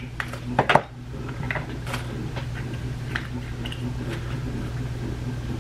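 Scattered clicks and light taps from handling small cosmetic compacts of shimmer topper, with two sharper clicks about half a second in, over a steady low hum.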